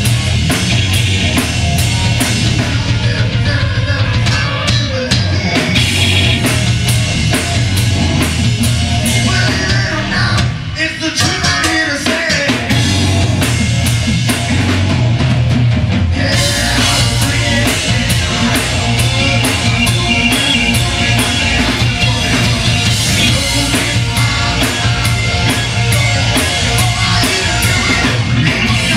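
Live rock band playing loud: drum kit with crashing cymbals, electric guitar, bass guitar and keyboard. The band drops back briefly about a third of the way through, then comes back in fuller with heavy cymbals.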